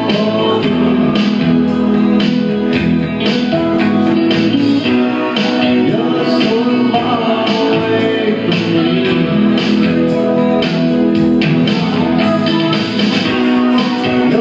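Band playing rock music: guitar over a steady drum beat.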